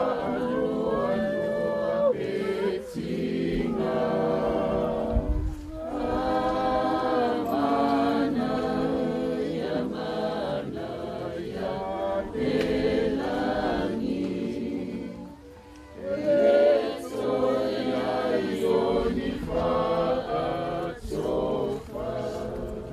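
A crowd of mourners singing a hymn together, unaccompanied, with a short break about two-thirds of the way through before the singing resumes.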